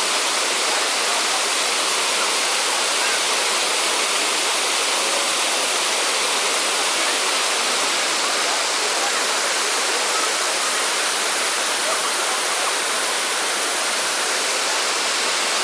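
Steady rushing of water pouring over the Kodiveri dam's stone weir, an even waterfall noise with little deep bass.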